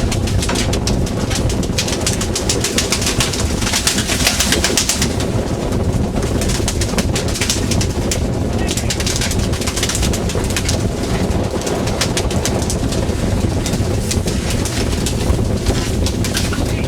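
A fishing boat's engine running steadily, a continuous low drone, with a hiss and fast rattle over it that swells twice.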